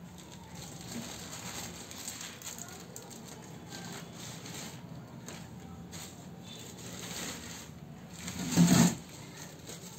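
Thin plastic bag crinkling and rustling as hands press vegetable and fruit peels down inside it, with a brief, much louder rustle or bump about a second before the end.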